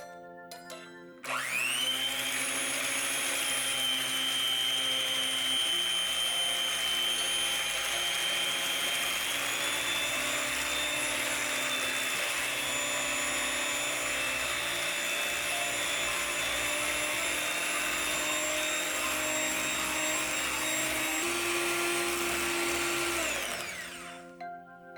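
Electric hand mixer running steadily with a high whine, spinning up about a second in and winding down near the end, with a small change in pitch partway through. Light mallet-percussion background music plays underneath.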